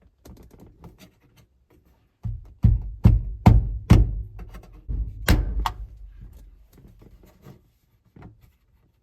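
Plastic dome light lens being forced into its chrome bezel: a run of sharp knocks and snaps from a couple of seconds in to about six seconds, over a low handling rumble. It is a tight fit.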